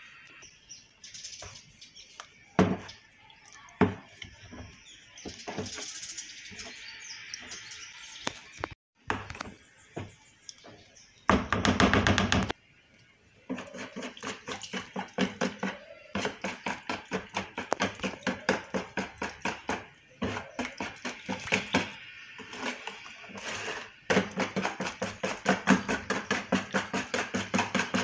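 A whisk beating a thick batter in a bowl, a fast, even run of strokes at about four a second through the second half. Before that, a spoon knocks and scrapes against the bowl as a thick paste is stirred in.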